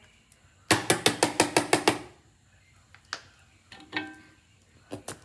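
A nearly empty plastic bottle of chili sauce shaken hard upside down to get the last sauce out: about nine quick knocks in just over a second, then a few faint clicks.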